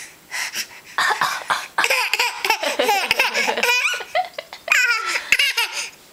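Baby laughing, a few short breathy bursts at first, then a run of high-pitched laughter from about a second in until near the end.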